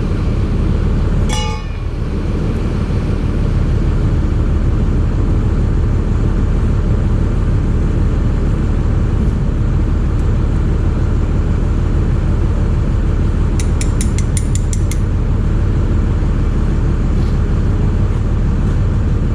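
A steady engine drone running throughout, with a quick run of about six light metallic clinks about fourteen seconds in.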